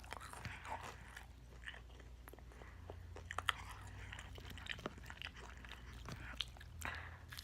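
Close-miked chewing and biting of crispy fried chicken: irregular crunches and crackles of the breading between the teeth, with small wet mouth sounds.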